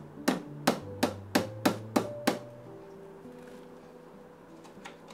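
A hammer tapping wooden dowels into the edge of a particleboard furniture panel: seven sharp knocks, about three a second, that stop a little over two seconds in. Soft background music plays underneath.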